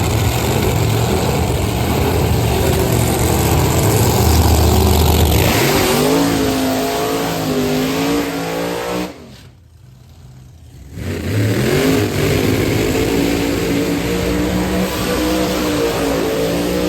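Race car engines at wide-open throttle: a deep rumble, then the engine pitch climbs and wavers as the car accelerates. Around ten seconds in the sound drops away for about two seconds, then an engine comes back revving up again.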